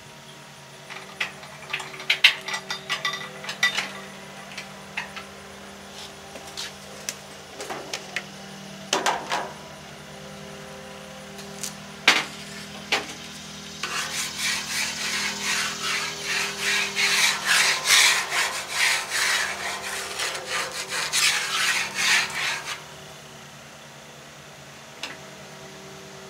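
A spatula scraping quickly, many short strokes in a row, for about eight seconds from the middle of the stretch. Earlier there are scattered clicks and short scrapes, all over a faint steady hum.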